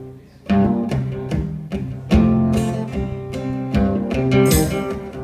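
Electric and acoustic guitars playing a blues-rock song live, starting about half a second in with strummed chords in a steady rhythm.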